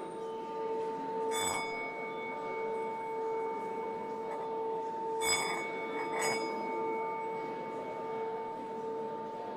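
A steady ringing drone held throughout, with three short bell-like chimes struck about a second and a half in and again about five and six seconds in, each ringing out briefly.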